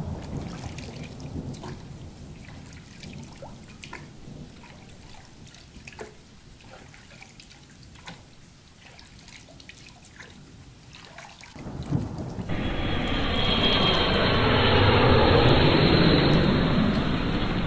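A low thunder rumble dies away under scattered drips. About twelve seconds in, a loud, steady rush of pouring, flowing water starts suddenly.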